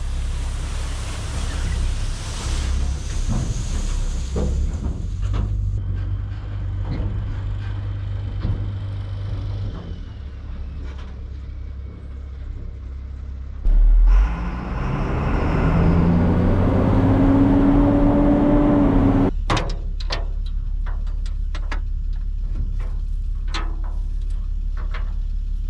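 Machine engine running with a steady low drone. About fourteen seconds in there is a heavy thump, then the engine revs with a rising pitch for several seconds before dropping back, followed by a run of sharp clicks and knocks.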